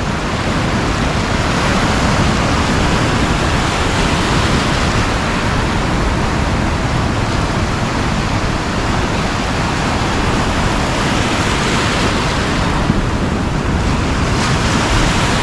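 Ocean surf breaking and washing through shallow foam on a beach, a steady rushing noise.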